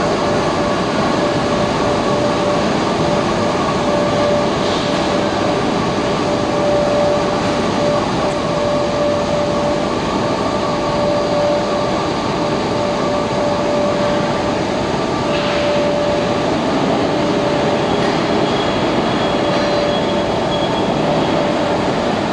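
Steel rolling mill running: the roll stands and their drive motors make a steady, loud industrial din with a constant whine.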